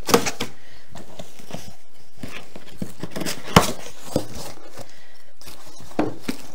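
Cardboard box flaps being folded open and handled: rustling and scraping of cardboard with a few sharp knocks, the loudest about three and a half seconds in.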